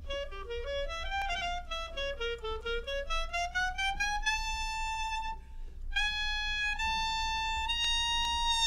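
Solo violin playing a quick run of notes that climbs and falls, then two long high held notes with a short break between them.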